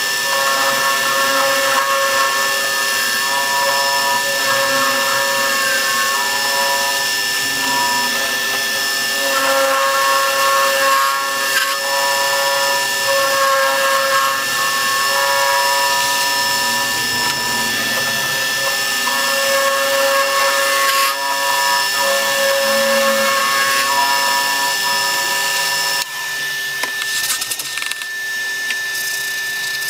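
An electric power tool running continuously while cutting wood, its motor tone steady with the load on it shifting every second or two. It changes character near the end.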